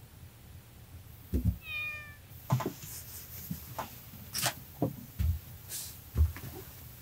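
A domestic cat meows once, briefly, about two seconds in, amid a run of irregular thumps and clicks, the loudest of them about a second in and near the end.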